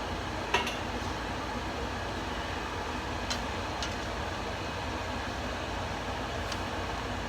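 Steady hiss with a low hum and a few light clicks, the clearest about half a second in, like a utensil touching cookware.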